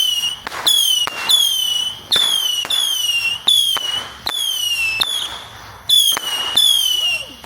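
Consumer fireworks going off in a rapid series: each shot is a sharp pop followed by a short, high whistle that falls in pitch, repeating about every three-quarters of a second, like a multi-shot whistling cake.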